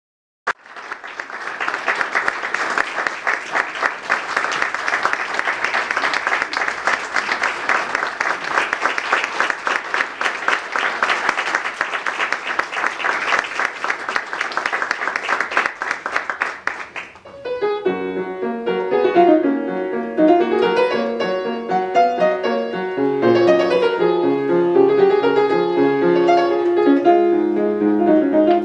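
Audience applauding for about seventeen seconds, then a fortepiano begins playing solo, running notes and chords.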